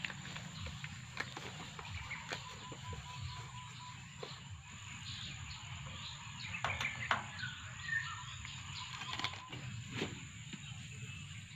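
Scattered clicks, taps and rustling from a man handling a stainless-steel knapsack sprayer and a plastic bag, over a steady low hum, with a few short bird chirps about two-thirds of the way through.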